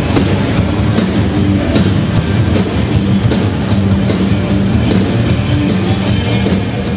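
Loud rock music with a drum kit and guitar, playing steadily without a break.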